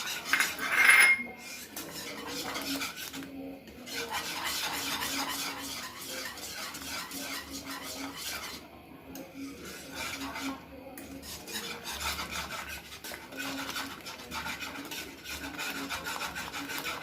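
A spoon stirring and scraping thick mango pulp mixture around a cooking pot: a rasping scrape that goes on with a few brief pauses, with a louder clink about a second in.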